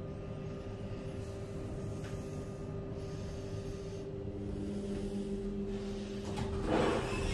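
KONE MonoSpace gearless traction lift running: a steady motor hum while the car travels, the hum's tone changing about four seconds in as it slows. The hum stops about six seconds in, and a louder burst of noise follows near the end as the car stops and the doors begin to open.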